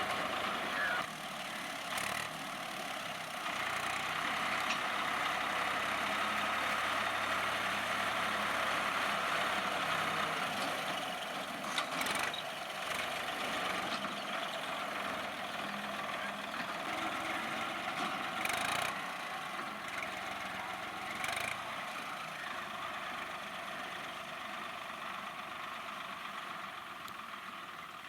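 Swaraj 960 FE tractor's diesel engine running steadily under work, with a few short sharp knocks about a third and two thirds of the way through.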